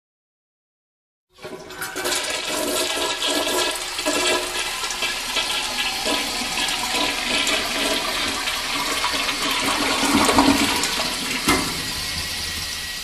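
Toilet flushing: a sudden rush of water starts about a second and a half in, runs on steadily, and eases off near the end.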